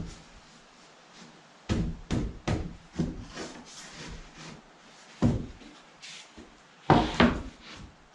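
Wooden knocks and scrapes as a board is handled and wedged between log walls, a series of sharp knocks with the loudest pair near the end.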